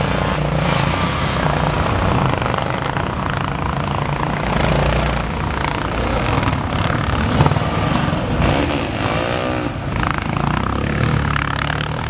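Several off-road motorcycle engines revving hard and unevenly together as the bikes labour through deep, rutted sand, with one engine's revs rising and falling repeatedly near the end.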